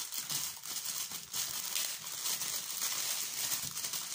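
Clear plastic packaging crinkling and rustling continuously as it is squeezed and pulled open by hand.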